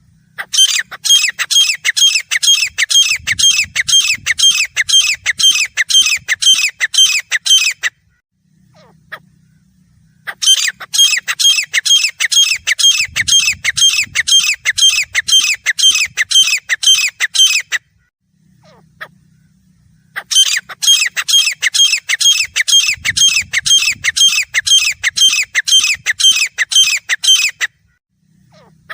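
Grey francolin calling: loud, harsh notes repeated rapidly in three bouts of about seven seconds each, with short pauses between. The bouts look alike, as though one recorded call were being replayed over and over.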